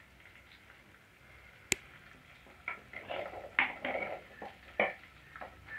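Whole shallots tipped from a plate into a clay cooking pot and scraped in with a wooden spoon. A sharp click comes a little under two seconds in, then a run of short knocks and rustles as the shallots tumble in.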